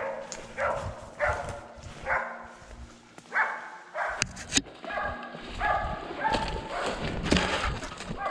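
A dog barking over and over, about one bark every two-thirds of a second. Two sharp clicks come a little after four seconds in, then the barking carries on less regularly.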